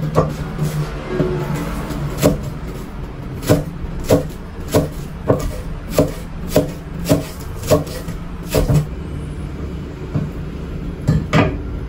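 Kitchen knife chopping green vegetables on a wooden cutting board: even knocks about two a second, stopping about three-quarters of the way through, with a couple more knocks near the end. A steady low hum runs underneath.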